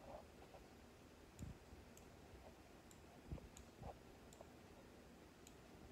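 Faint, scattered computer mouse clicks in near silence, with a few soft low thumps.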